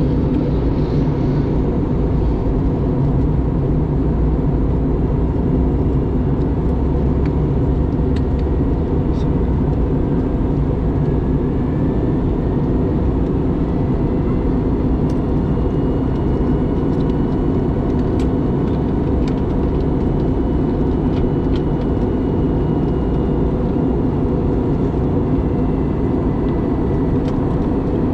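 Airbus A321neo passenger cabin noise in flight: a steady low rush of engines and airflow, with a faint steady whine above it and a few faint ticks.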